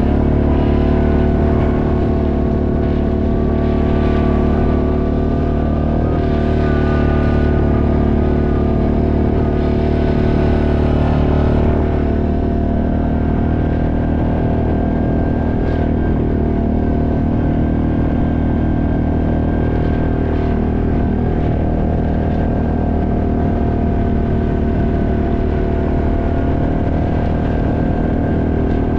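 ATV engine running steadily under way, heard from on board, its pitch rising and dipping a little in the first half and then holding even.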